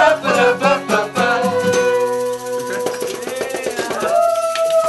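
Acoustic cover band playing the close of a pop song: singing over strummed acoustic guitar, with maracas and a tambourine shaking. After about two seconds the singing gives way to a long held note, and a second held note with scattered percussion clicks follows near the end.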